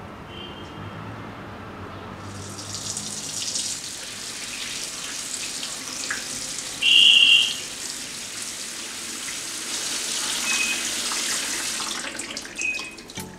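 Water running from a brass faucet onto sour cherries in a woven basket, rinsing them: a steady splashing hiss that starts about two seconds in and runs until near the end. A short high chirp about midway is the loudest sound.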